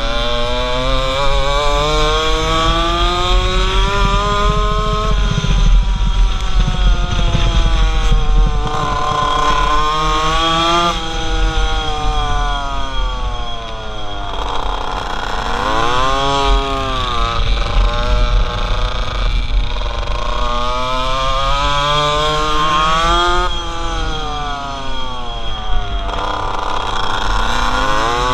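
Pocket bike's small two-stroke engine revving up and down with the track. Its pitch climbs for several seconds at a time and falls off when it slows for a corner, most sharply about fifteen seconds in. Wind buffets the helmet-mounted microphone underneath.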